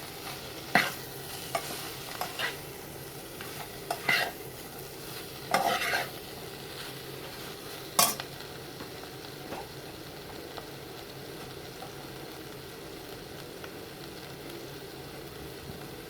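Ground meat sizzling in a frying pan, with a utensil scraping and knocking against the pan several times during the first eight seconds, then only steady sizzling.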